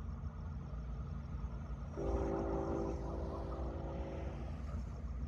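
Train horn sounding one long, steady blast in the distance, a chord of several tones lasting about two and a half seconds, starting about two seconds in. A low rumble runs underneath.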